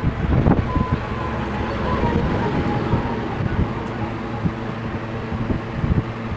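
Mini air cooler's fan motor running with a steady hum, its air stream buffeting the microphone in uneven gusts.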